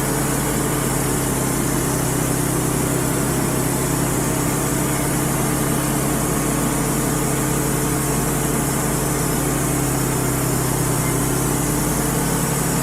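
Wood-Mizer LT35 portable sawmill's engine running steadily at an even pitch, with no change in load.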